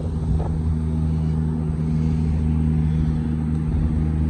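A vehicle engine idling with a steady low hum that does not rise or fall, over the even rush of a mountain creek and waterfall.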